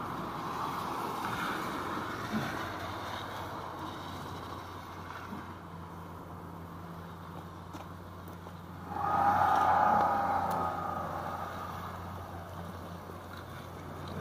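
City traffic on rain-wet streets: tyres hissing on the wet road over a steady low hum, with one vehicle passing close and loudest about nine to eleven seconds in.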